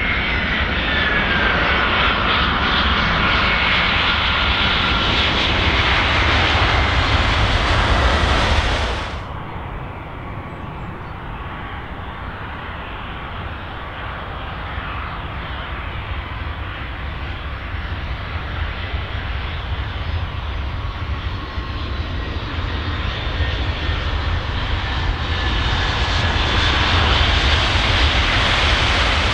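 Jet airliner engines passing close by on landing, a whine falling in pitch as it goes by; the sound drops off abruptly about nine seconds in. Another jet's engine noise then builds gradually, loudest near the end.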